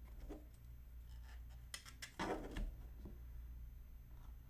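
Faint handling sounds of small model parts and glue bottles: a few light clicks and taps, with a brief louder scuff about two seconds in, over a steady low hum.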